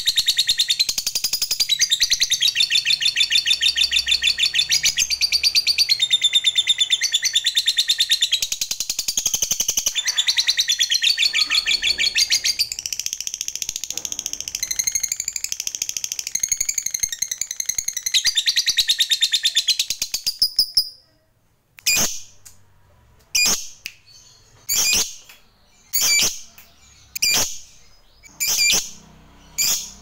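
Fischer's lovebird (yellow colour mutation) giving a long, rapid rattling chatter, the drawn-out song that keepers call ngekek, for about twenty seconds. It then breaks off and gives single sharp calls, a little more than a second apart.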